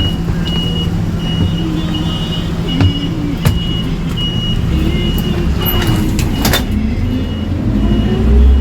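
Small city bus engine running with a steady hum while a high electronic warning beep repeats about twice a second; two sharp knocks come around the middle, and the engine pitch rises near the end as the bus pulls away.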